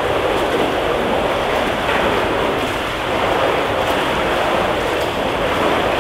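Steady rushing and splashing of water in an indoor swimming pool, from swimmers moving through the lanes.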